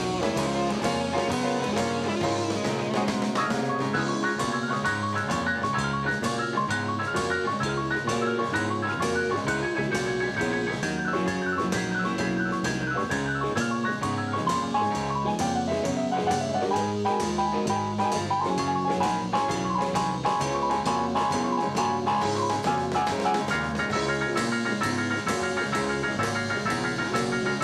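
Instrumental blues band music: a drum kit keeps a steady beat under a moving melodic lead line.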